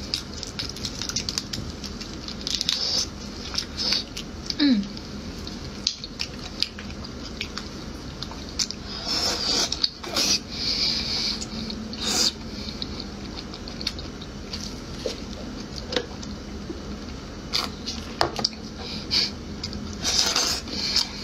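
Wet eating sounds of marinated black tiger prawns being shelled by hand and eaten. There is squishing and crackling of shell and flesh throughout, and louder sucking and slurping at the prawn meat a few times, near the middle and near the end.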